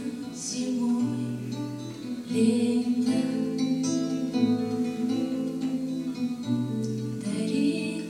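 Acoustic guitar strummed in a slow song accompaniment, with a woman's singing voice over it; heavier strums come at about two and a half seconds and near the end.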